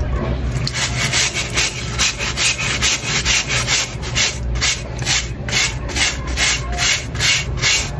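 A brush scrubbing a red mesh sneaker, in quick back-and-forth rasping strokes at about two a second, starting about a second in.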